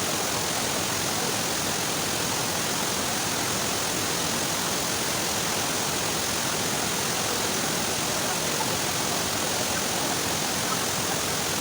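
Steady rushing of falling or running water, an even hiss-like roar that does not change.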